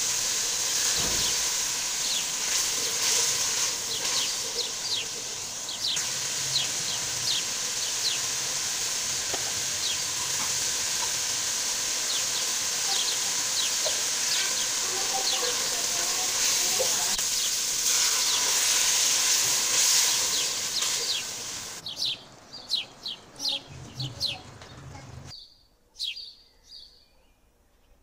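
Masala frying in oil in an aluminium pot, a steady sizzle, with small birds chirping repeatedly throughout in quick short calls. Near the end the sizzle falls away and only the bird chirps are left.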